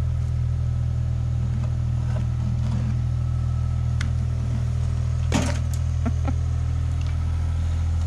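Mini excavator's diesel engine running steadily at a constant speed, with a few light knocks and one sharp metallic clank about five seconds in.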